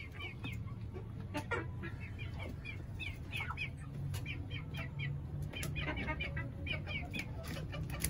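Four-month-old Aseel chicks calling in a string of short, high, falling peeps, several a second at times, over a steady low hum.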